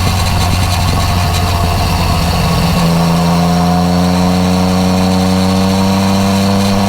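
Yamaha MT-09 Tracer's three-cylinder engine running through an Akrapovič exhaust on the move. The engine note jumps higher about three seconds in, then climbs slowly as the bike accelerates.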